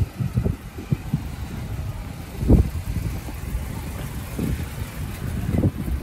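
Cars running on a street: a low engine and tyre rumble, with two louder swells, one about halfway through and one near the end.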